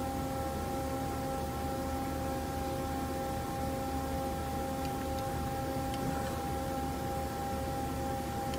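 Doosan Lynx 220 CNC lathe humming steadily with a few held whining tones while its axes travel back to their home (reference) position.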